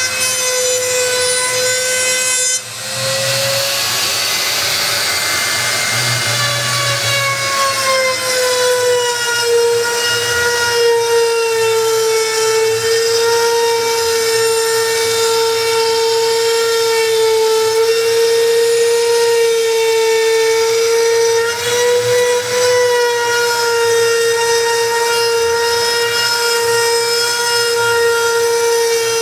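CNC router spindle cutting plywood with an end mill: a steady high whine over a rasping cutting noise. The level drops briefly about three seconds in, and the whine's pitch sags slightly a few seconds later and then holds.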